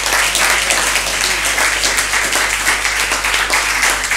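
Audience applauding, many hands clapping at once in a steady, dense patter.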